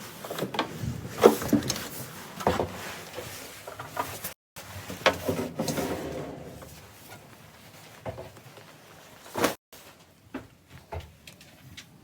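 A series of separate knocks and clunks from things being handled, like a door or drawer being worked, the loudest about a second in. The sound drops out abruptly twice.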